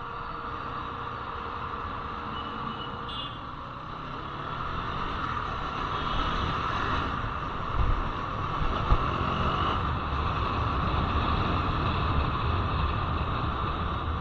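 KTM Duke 390's single-cylinder engine running under way, mixed with wind and road noise as heard from a camera on the motorcycle; the sound grows louder a few seconds in.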